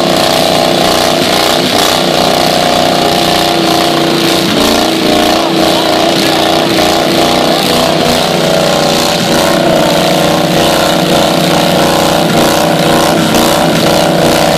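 Engines of two quarter-scale pulling tractors running hard together, a loud steady drone that holds nearly constant pitch. They are working under heavy load, pulling against each other on a chain.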